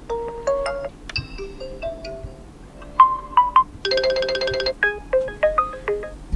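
Oppo Reno7 5G alarm tones playing from the phone's speaker: short electronic melodies of separate pitched notes, the tune changing several times. About four seconds in comes a dense run of rapid repeated notes.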